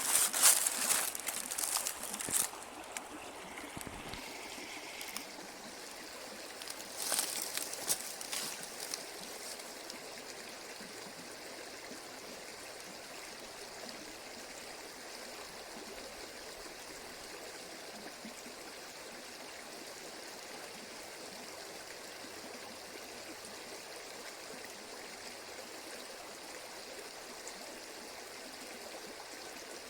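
Dry autumn leaves rustling in two crisp gusts, at the start and again about seven to nine seconds in, over a steady rushing hiss that runs on after them.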